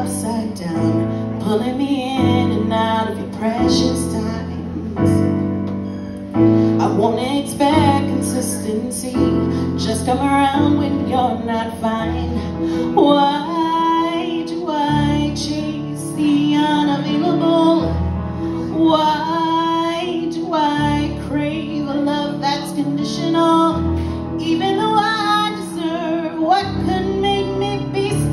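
A woman singing a slow song live into a microphone, accompanied by a keyboardist playing sustained chords on a digital piano; the sung lines hold long notes with vibrato.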